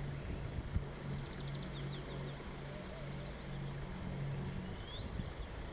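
Outdoor ambience: a low steady engine hum that fades out near the end, with small birds chirping and a short rising whistle call about five seconds in, over rumbling wind on the microphone.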